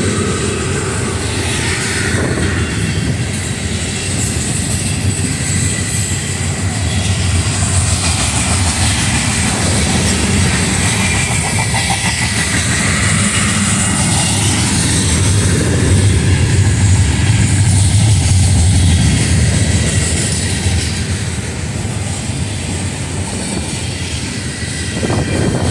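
Freight cars of a mixed freight train rolling past close by: steel wheels running on the rails with a steady rumble, growing a little louder past the middle and easing off near the end.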